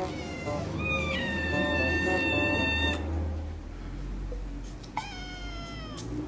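Exotic Shorthair–Siberian mix kitten meowing loudly to beg for food: one long, high, steady meow lasting about two seconds, then a shorter meow that falls in pitch near the end.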